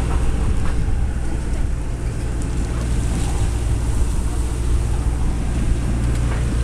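Fishing boat's engine running steadily, a low drone, with wind buffeting the microphone.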